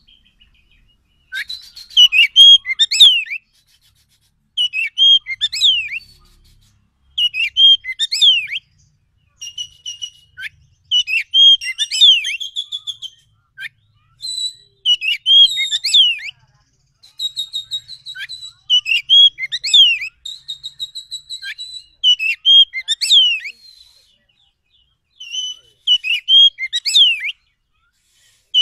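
Oriental magpie-robin (kacer) singing an agitated, territorial song: short loud phrases of sweeping whistles and quick chattering notes, repeated about every two to three seconds with brief pauses, a few phrases carrying fast high trills.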